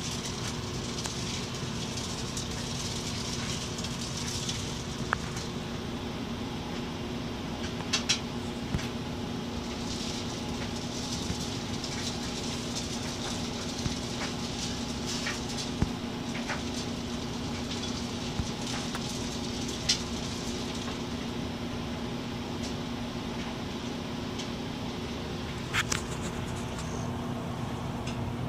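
A steady mechanical hum, with about a dozen short, sharp clicks scattered through it.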